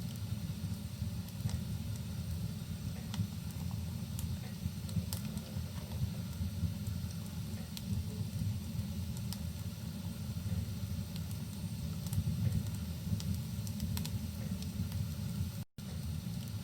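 Wood fire crackling in a fireplace, irregular sharp pops over a steady low rumble, with rain. The sound cuts out for an instant near the end.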